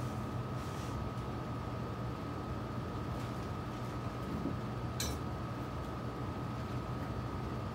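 Steady workshop room hum with a thin high-pitched whine, broken by a single sharp click about five seconds in.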